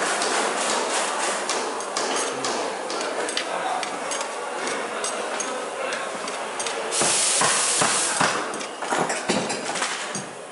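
Tomato and eggs sizzling in a stainless steel frying pan as they are stirred, with many quick clicks of the utensil against the pan. A louder, brighter hiss starts about seven seconds in.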